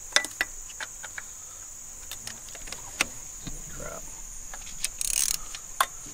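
Insects droning steadily at a high pitch, with scattered sharp clicks and knocks of hand tools working on the engine, and a short hiss about five seconds in.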